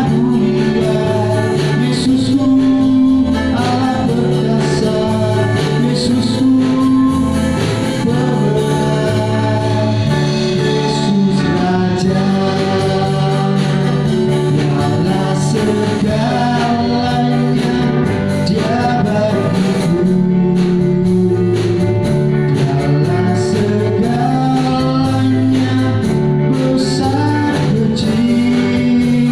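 Indonesian praise-and-worship gospel song: singing over a band accompaniment with bass and a steady beat.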